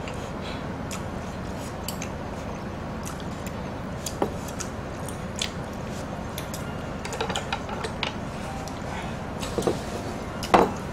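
Chopsticks clicking and tapping against dishes and metal food trays while eating, as scattered light clicks over a steady background hiss. A louder clatter comes near the end.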